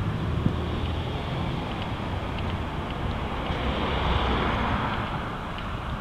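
Road traffic on a multi-lane boulevard: a steady hiss of tyres and engines with a low rumble, swelling about four seconds in as a car goes by close. Wind buffets the microphone.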